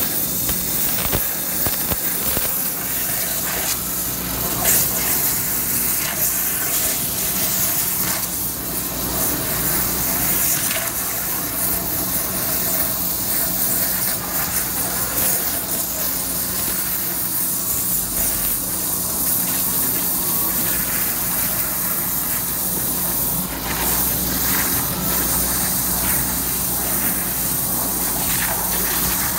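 Waterjet Italia DX 510-5X CNC waterjet cutting sheet stock: the high-pressure water jet hisses steadily as the head moves, over a steady low hum.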